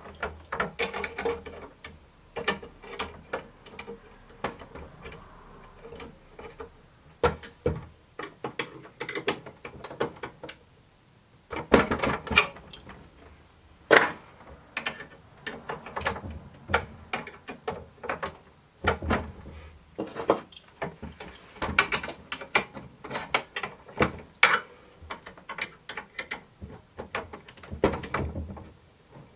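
Machine screws and lock nuts being tightened by hand with a screwdriver and small wrench: a long run of irregular metallic clicks, ticks and scrapes, with a couple of louder clicks around the middle. It is a screw being turned until it is tight and no longer spins, rather than stopping once the lock nut binds.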